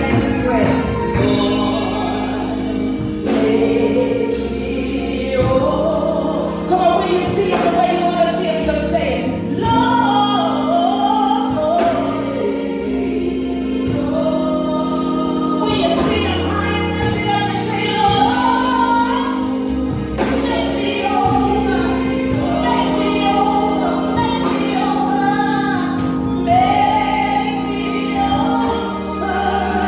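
Gospel worship music: a lead woman sings into a microphone with female backing singers over a sustained instrumental accompaniment.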